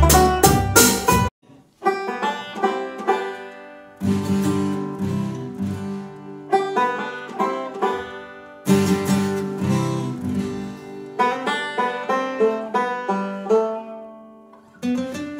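Instrumental bluegrass from a five-string banjo, acoustic guitar and upright bass. The full band, drum hits included, stops abruptly about a second in, and after a short gap the strings resume in sparser picked phrases, with the bass notes dropping out and coming back.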